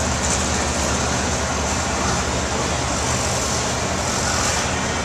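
Steady background din of a drag-racing pit area: a low engine-like drone under an even hiss, with no separate knocks or bursts standing out.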